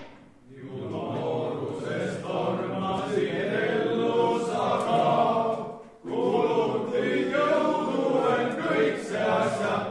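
A table of men singing a student song together in unison. The singing stops briefly about six seconds in, then picks up again.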